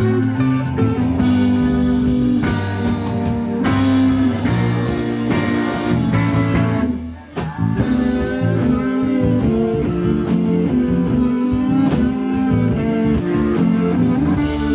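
Rock band playing live: electric guitar, bass guitar and drum kit. The band stops briefly about seven seconds in, then comes straight back in.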